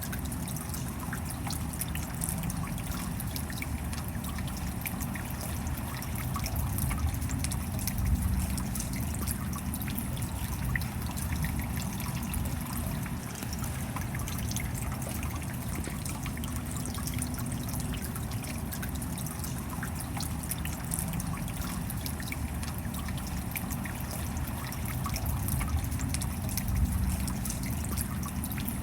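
Steady rain falling, a dense patter of many small drop impacts with water trickling, holding even throughout.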